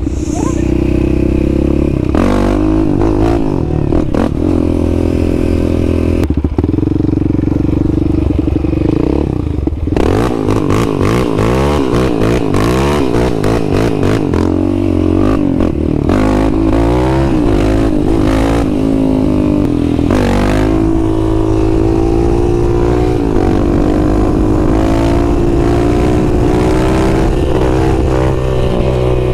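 Yamaha Raptor 700's single-cylinder engine revving up and down under throttle as the ATV is ridden, its bald tires spinning on grass without traction.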